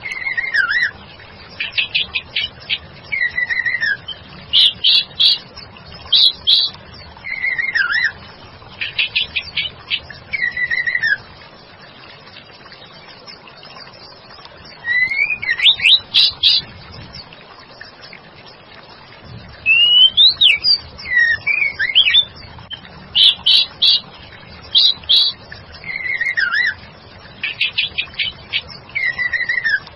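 White-rumped shama calls, given as a female calling to a male: short phrases of quick ticks, each ending in a falling whistle, repeated every second or two. There are a few rising and falling whistles about midway and short pauses between bursts, over a steady background noise.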